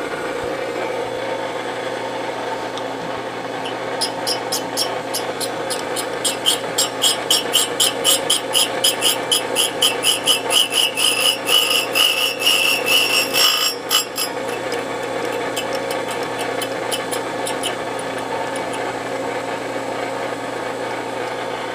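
A grinding wheel on a Bridgeport milling machine's spindle running with a steady motor hum. From about four seconds in, the wheel grinds the metal workpiece with a rasping contact that pulses several times a second. It is strongest up to about fourteen seconds, then thins out and stops a few seconds later.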